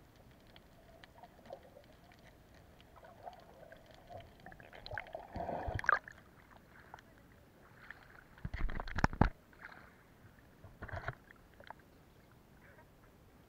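Water splashing and sloshing over a camera held at the surface after coming up from underwater, in bursts about five to six seconds in, loudest around nine seconds, and once more near eleven seconds. Before that, faint scattered ticks under the water.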